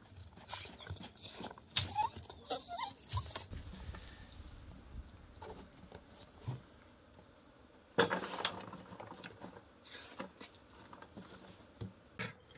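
Short, high, wavering animal whines about two seconds in, then a single sharp knock about eight seconds in.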